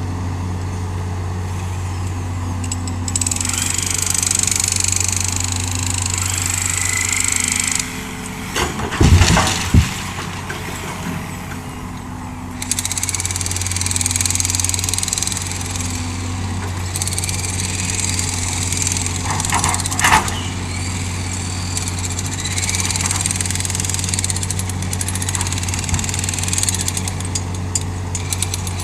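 Hitachi hydraulic excavator's diesel engine running steadily under a high hiss that swells and fades as it works. There are loud knocks about nine seconds in and another near twenty seconds.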